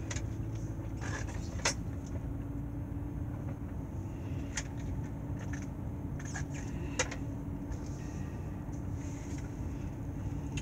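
Car interior noise: a steady low rumble with a faint steady hum, and a few small clicks along the way.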